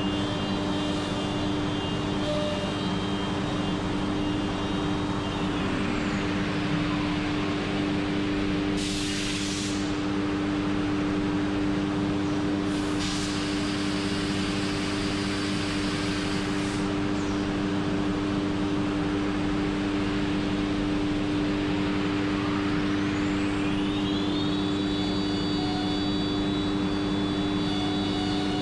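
HOMAG CENTATEQ CNC router's spindle and extraction running with a steady hum. A high whine falls away about six seconds in as the spindle winds down, two long hisses of air follow, and near the end the whine rises and holds high as the spindle spins back up to speed, the pattern of a tool change.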